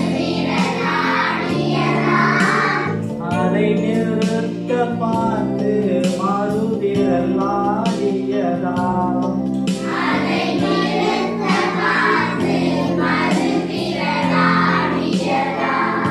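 A song with singing over a steady instrumental accompaniment.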